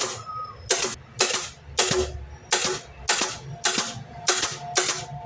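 A rapid run of short, sharp strikes, roughly two a second and about a dozen in all, from work on an MDF drawer.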